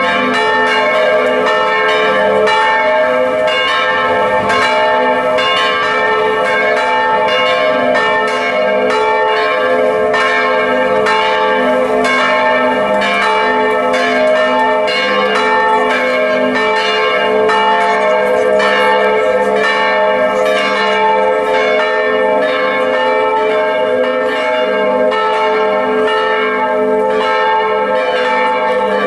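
Several church bells in a tower ringing a festive peal, swinging and striking in quick succession. Their tones overlap into one continuous ringing that does not stop.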